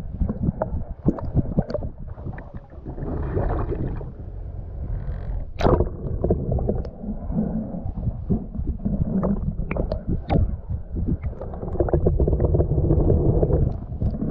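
Muffled water sound in the surf or underwater, heard through a camera's waterproof housing: gurgling and sloshing, with scattered sharp clicks and knocks throughout.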